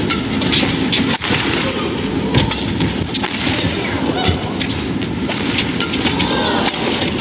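Badminton rally: sharp, repeated clicks of the shuttlecock being struck by rackets, over steady arena crowd noise.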